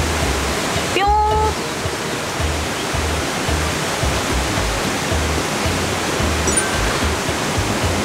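Steady rushing of a mountain valley stream, an even hiss of flowing water, under background music with a low pulsing beat.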